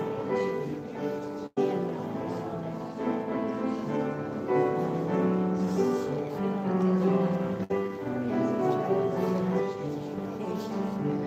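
Piano music: slow, held chords played on a grand piano. The sound drops out for an instant twice.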